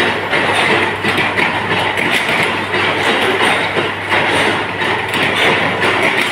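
Induction heating machine running: a steady rushing machine noise over a constant low mains hum, with a few light clinks of steel rods being handled.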